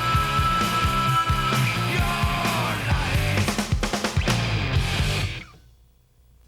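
Rock soundtrack music with distorted guitar and a steady beat, fading out to near silence about five seconds in.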